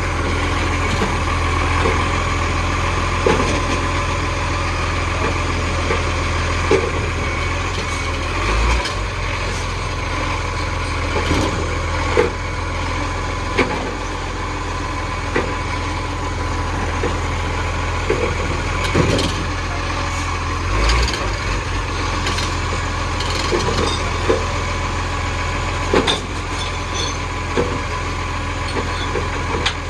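Dennis garbage truck's engine running steadily at a low idle-like hum, with short knocks and clunks scattered every second or few seconds.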